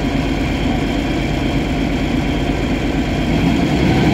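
Tracked hydraulic excavator's diesel engine idling steadily close by. Near the end its note shifts and it gets a little louder.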